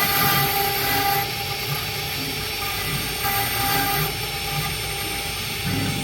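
Stone CNC router machine running, a steady whine of several tones over an even hiss.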